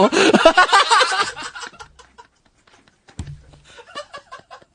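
Laughter: a hearty burst that trails off about a second and a half in, then a second, quieter bout of short chuckles near the end.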